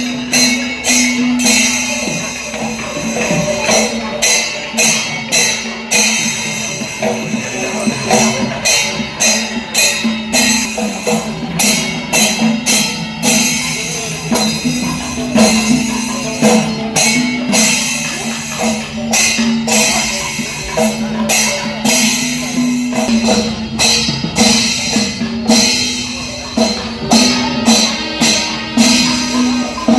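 Loud percussion music: fast, repeated clashes of small cymbals and drumming over a steady held note.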